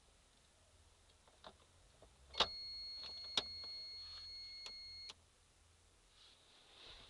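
A few faint clicks, then a sharp click starts a steady high-pitched electronic tone. The tone lasts nearly three seconds, with a couple of clicks during it, and stops abruptly with another click.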